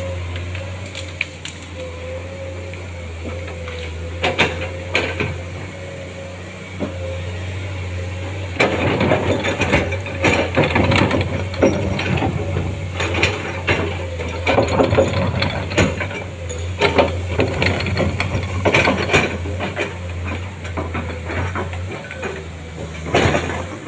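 Komatsu hydraulic excavator's diesel engine running with a steady low hum and a steady whine. From about eight seconds in, the bucket scrapes and crunches through earth, stones and roots, with repeated knocks and crackles.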